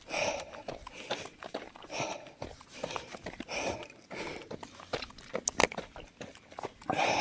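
A runner breathing hard, one heavy breath about every second and a half to two seconds, with short scuffs of footsteps on the trail between the breaths.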